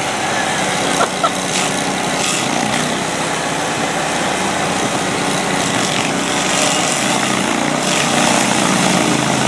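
Stump grinder running steadily under power, its engine note under a dense, even grinding noise, with a couple of short knocks about a second in.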